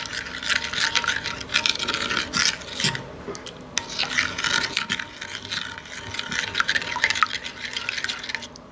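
Metal spoon scraping and clinking against a ceramic bowl, stirring oatmeal with milk until smooth, with a brief lull about three seconds in.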